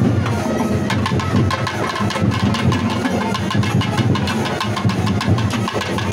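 Procession drums played in a fast, dense roll over a steady low hum.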